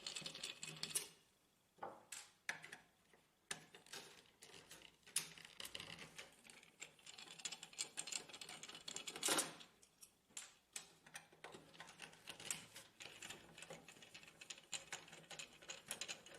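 Faint irregular clicks, ticks and short scrapes of a screwdriver working screws out of the printer's frame, with a louder scrape about nine seconds in.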